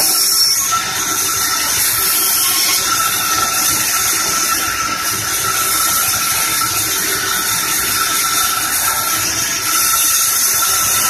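Sawmill band saw running and sawing a medang log: a loud, steady high hiss with a thin steady whine underneath, unbroken throughout.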